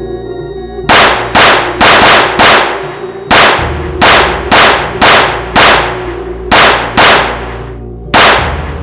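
About a dozen shots from a semi-automatic AR-style .410 shotgun fired in quick strings, roughly two a second with short pauses between groups, each shot ringing out briefly. Background music plays underneath.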